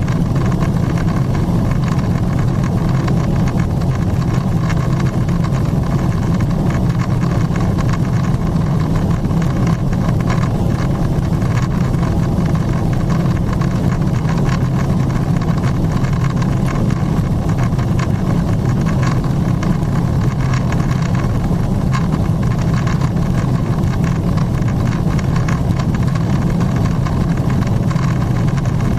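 Steady cabin noise inside a climbing Boeing 777-300ER: the low rumble of its GE90-115B engines at climb power mixed with the rush of air past the fuselage, heard through the cabin window.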